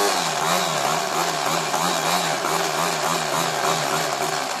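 A 775 DC motor spinning a 3D-printed dual impeller pump submerged in water: a loud steady whir with water churning, its pitch wavering up and down two or three times a second.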